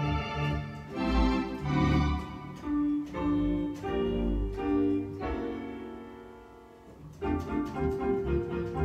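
Virtual theatre pipe organ (Hauptwerk sample set) played from manuals and pedalboard: sustained chords over pedal bass notes. A long chord dies away about five to seven seconds in, then the playing comes back in fuller.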